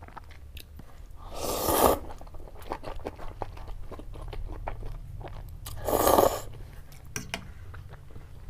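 Chicken thukpa noodles slurped twice, about a second and a half in and again about six seconds in, each slurp swelling and then cutting off. Between them comes close-miked chewing with small wet mouth clicks.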